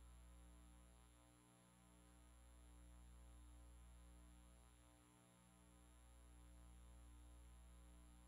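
Near silence: a steady low electrical hum that slowly swells and fades, dipping about every three to four seconds.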